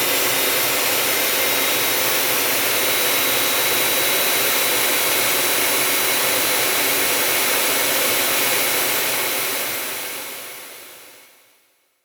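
Cessna Citation business jet's turbofan engines idling, heard from outside the aircraft: a steady rush with thin high whines on top. The sound fades out over the last three seconds.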